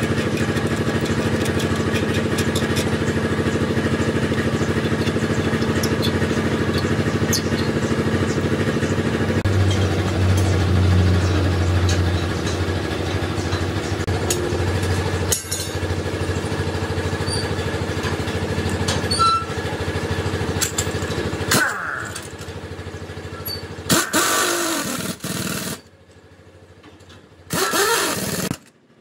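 An engine runs steadily, then a pneumatic impact wrench on the truck's wheel nuts fires in a few short bursts near the end, the loudest sounds here.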